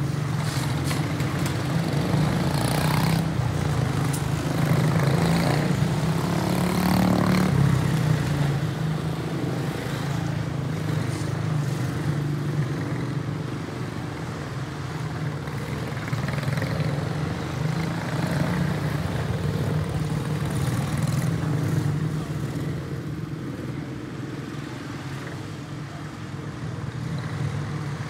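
Several quarter midget race cars with Briggs & Stratton Animal single-cylinder four-stroke engines racing on a small oval, making a steady engine drone. It grows louder as the pack passes close, about four to eight seconds in, and eases off somewhat near the end.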